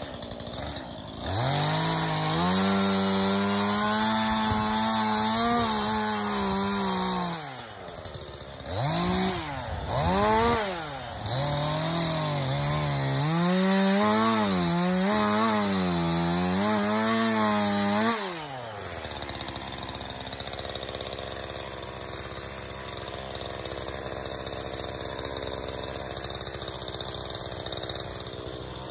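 Stihl MSA 220 C battery chainsaw cutting wood in several trigger pulls: a long cut, two short bursts, then another long cut. The motor whine climbs quickly from rest, dips and wavers as the chain bites, and falls straight back to silence on each release rather than settling into an idle. A quieter steady hiss follows for the last ten seconds.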